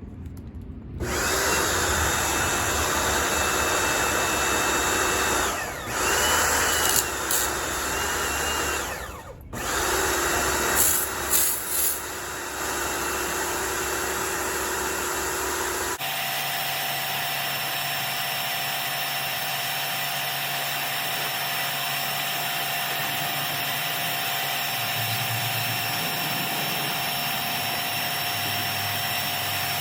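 A motor-driven tool or machine running steadily, with its sound dipping and shifting a few times. About halfway through it cuts abruptly to a steadier machine hum with a different tone.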